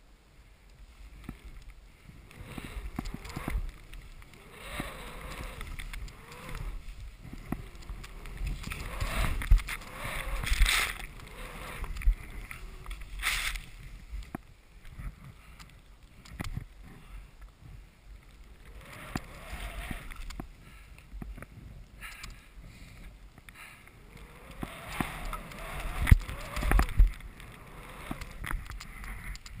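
Skis carving through deep powder snow, a hissing whoosh that swells and fades with each turn, with low wind buffeting on the camera's microphone. The loudest surges come about ten seconds in and again near the end.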